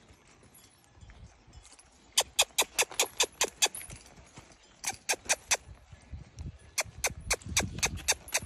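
A horse handler's sharp tongue clicks, given in quick runs of several clicks at a time with pauses between, to urge a young filly to walk on.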